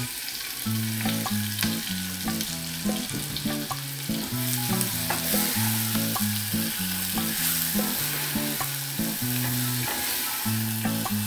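Sliced apple sizzling as it fries in a saucepan of hot butter, stirred with a plastic spatula that ticks against the pan. Background music with a bass line plays along.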